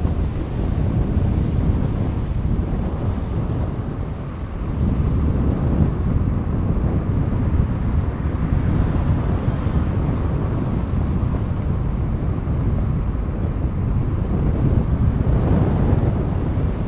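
A moving car heard from inside its cabin: a steady low rumble of tyres and engine. It swells louder about five seconds in and again near the end.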